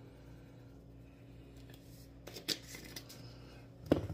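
A few short clicks and rattles of small spice jars being handled, the loudest just before the end, over a low steady hum.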